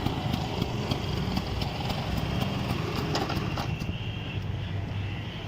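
A 1986 Vespa 125 scooter's single-cylinder two-stroke engine running steadily, with a low hum and light regular ticking.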